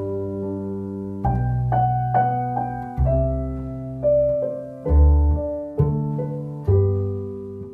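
Background music: a piano playing slow chords and single notes, each struck and left to ring out.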